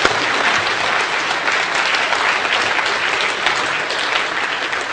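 Audience applauding: a dense, steady clapping from many people.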